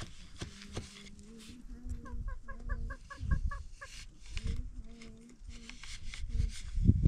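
Chickens clucking, with a quick run of about nine short high notes a couple of seconds in. A few dull wooden knocks come from the ground loom's beater.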